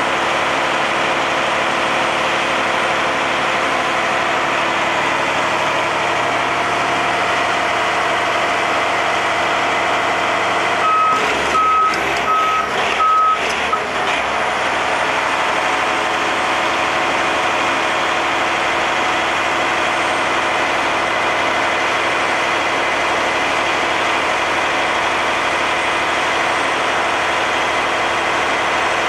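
Heavy diesel engine of a tracked log loader running steadily close by. About eleven seconds in, a backup alarm gives a short run of evenly spaced beeps, together with a few clanks.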